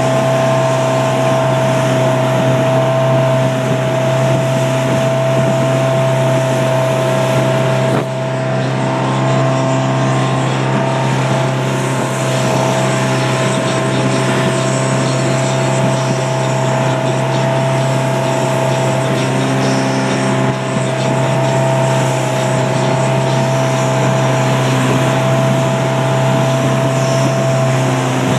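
Motorboat engine running steadily at speed, with a loud low drone and a constant whine above it.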